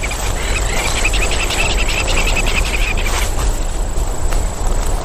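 Bush insects trilling in a rapid, high-pitched pulsing chorus that stops about three seconds in, over a steady low rumble.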